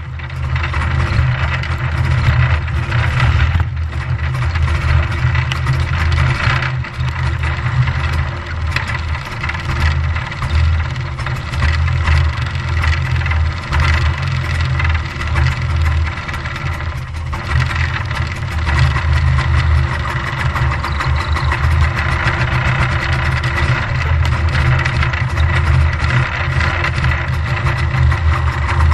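Single-cylinder 252cc two-stroke JLO Rockwell engine of a 1965 Bolens Hus-Ski 444 snowmobile running steadily, with small swells in level.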